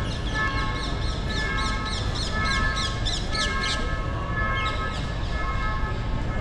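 Busy street noise with a quick run of high, falling chirps, about three a second, over a repeating pattern of steady high tones; the chirps fade about four seconds in.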